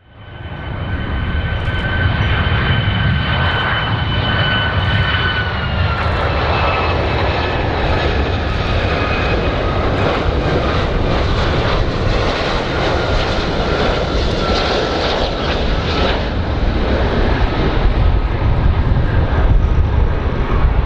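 Airplane engines running loud, a steady rumble and rushing noise with a high whine through it that drops in pitch about six seconds in.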